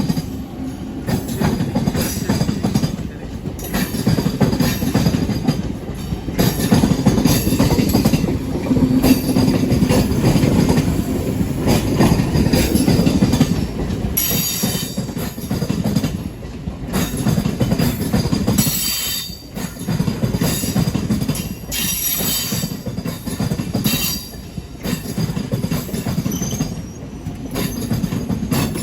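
Train running on the rails: a continuous heavy rumble that swells and eases, with brief high-pitched wheel squeals now and then.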